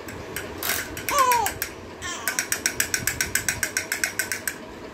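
Plastic toy's ratchet mechanism being worked by hand: a few scattered clicks, then a fast, even run of clicks, about eight a second, that stops a little before the end.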